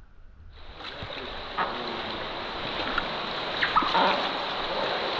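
Rushing river water: a steady rush that comes in suddenly about half a second in and grows a little louder, with a few sharper splashes.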